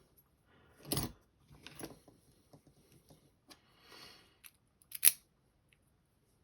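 Small metal clicks and short scrapes from a pin-tumbler lock and its parts being handled while it is taken apart. There is a sharp click about a second in and a louder one about five seconds in.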